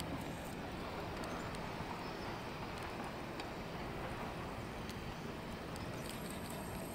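Steady rain and wind noise outdoors, a low even rumble with scattered light ticks of raindrops.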